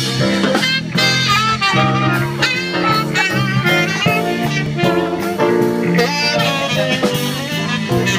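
Small dixieland jazz band playing live, a tenor saxophone carrying the melody over electric bass and drums.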